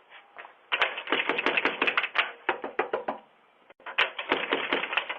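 A quick run of sharp knocks, several a second, that breaks off about three seconds in and then starts again near the end.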